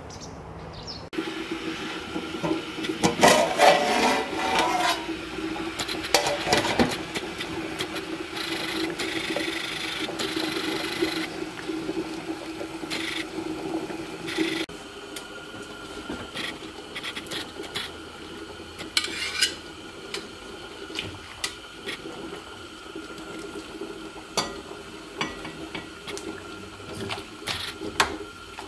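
Kitchen work sounds: metal utensils knocking and scraping against cooking pots, with water in a pot, in several short stretches. The loudest clatter comes a few seconds in.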